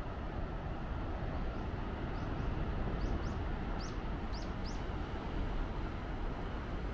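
A bird gives a quick series of about eight short, high, sweeping chirps between about one and a half and five seconds in, over a steady low rushing noise.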